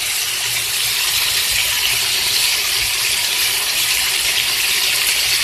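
Bitter melon, ackee, tomatoes and onions sizzling in a hot pan, a steady even hiss.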